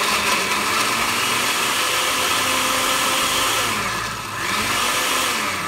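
Countertop glass-jar blender running at speed, puréeing boiled green tomatoes and chiles with a little of their cooking water. Its sound dips briefly about four seconds in and begins to die away at the end.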